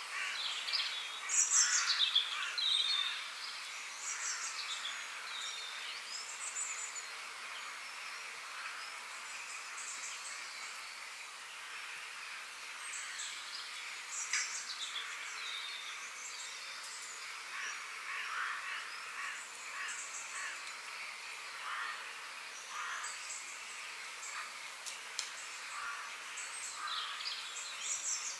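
Forest bird chorus: several birds chirping and whistling over a steady background hiss. The loudest calls come a second or two in, as quick whistles falling in pitch.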